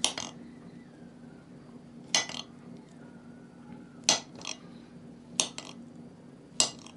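Kitchen knife cutting banana slices on a glass plate, the blade knocking sharply on the glass at the end of each cut, about every one to two seconds.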